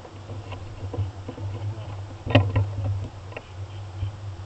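Faint scattered clicks and small knocks over a steady low hum, picked up muffled by a keychain video camera sealed in a caulking-tube shell inside the air cannon's barrel; one click, about two and a half seconds in, is a little louder.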